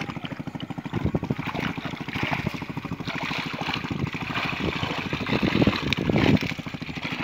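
Pond water splashing and sloshing as a net is hauled through it and the fish bunched inside churn the surface, over a fast, steady low pulsing. The splashing swells louder a couple of times.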